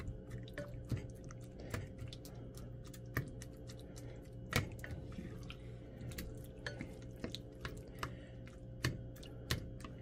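A spatula stirring and breaking up browned ground beef in a glass bowl: soft squishing of the meat with many irregular light clicks and taps of the spatula against the glass, over a faint steady hum.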